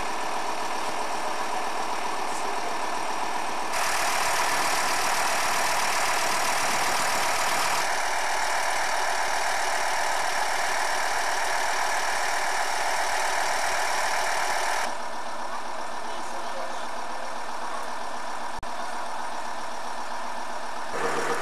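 Diesel engine of a small narrow-gauge tourist locomotive running steadily. Its tone changes abruptly a few times.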